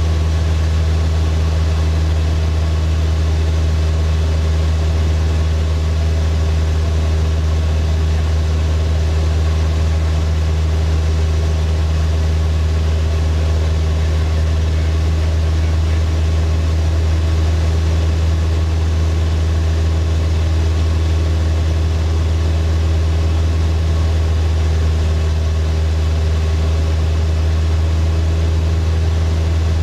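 Floatplane's piston engine and propeller running steadily in flight, heard from inside the cockpit: a deep, even hum that holds the same pitch and level throughout.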